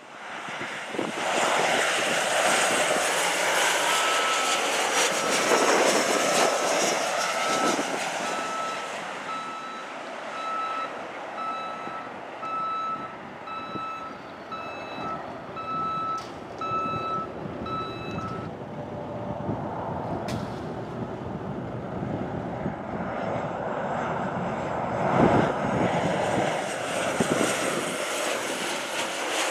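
Jet airliners landing, their engines making a steady, loud rushing noise. A vehicle's reversing beeper sounds about once a second from about four seconds in until past the middle.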